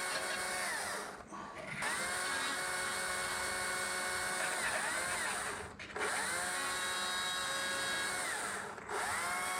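Electric power tool motor running at a steady high whine. It is let off three times, spinning down briefly and winding back up to speed each time.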